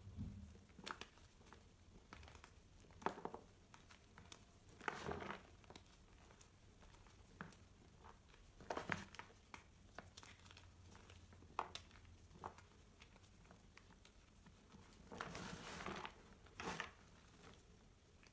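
Reformed pink gym chalk crumbling and crunching in the hands: scattered sharp cracks and short gritty crunches, with a longer crushing rub of chalk about fifteen seconds in.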